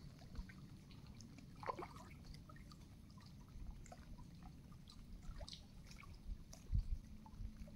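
Canoe being paddled on calm water: faint trickling and dripping of water around the paddle and hull, with small scattered ticks over a steady low rumble. A couple of soft low thumps come near the end.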